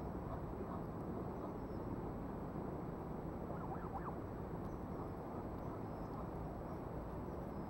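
Steady low background rumble of outdoor ambient noise, with a brief faint call, like a bird's, about four seconds in.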